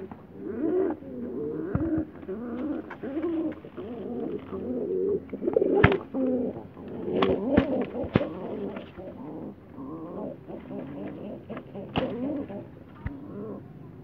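Frillback pigeons cooing over and over, the soft wavering coos running on without a break. A few sharp clicks cut through near the middle and again later.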